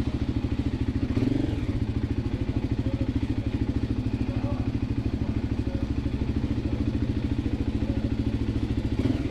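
Voge 300 Rally's single-cylinder engine running steadily as the motorcycle moves slowly, with an even, rapid pulse.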